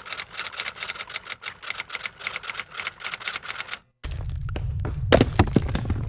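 Typewriter sound effect: rapid, even key clacks, about seven or eight a second. They stop about four seconds in and give way, after a brief gap, to a steady low hum with a few sharp clicks.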